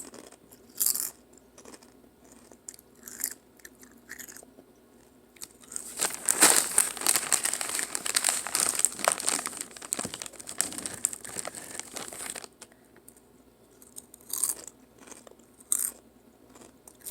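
Crunchy Sriracha Doritos tortilla chips being bitten and chewed close up. A few separate crunches come early and late, with a dense run of crunching chewing in the middle lasting about six seconds.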